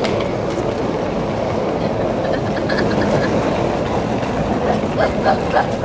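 Hard-shell rolling suitcases' wheels rumbling steadily over a rough concrete floor, with a few clacks near the end.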